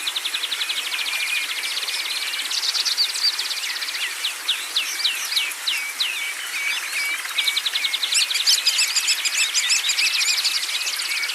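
Songbirds singing: fast, rapid trills alternate with a string of sharp, downward-sliding chirps, with busier overlapping song from about eight seconds in.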